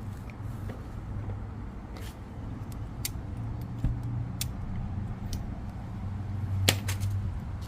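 Yamaha Timberwolf 250 ATV engine running with a steady low hum that swells slightly twice, with a few sharp clicks over it, the loudest near the end.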